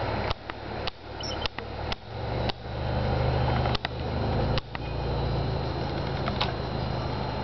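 Steady low mechanical hum, like a fan, broken in the first few seconds by a run of sharp handling clicks on the camera. Each click is followed by a sudden drop in level that climbs back up.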